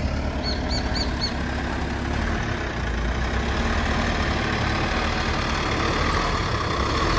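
Engine of a large Mercedes-Benz Sprinter van running steadily while the van is maneuvered into place.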